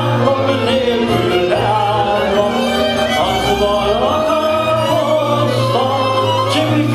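A man singing a Hungarian nóta (magyar nóta) into a microphone, with violin and band accompaniment under his voice.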